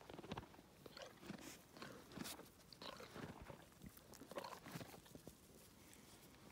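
A black equine chewing carrots close up: faint, irregular crunching.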